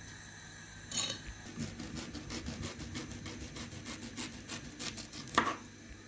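Kitchen knife sawing through fresh ginger root on a wooden chopping board: quick back-and-forth strokes, about five a second, then a louder knock near the end as the blade comes down on the board.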